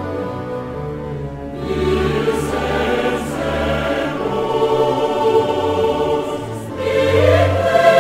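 Background music: a choir singing held chords over a low bass. The choir grows fuller about two seconds in and again near the end.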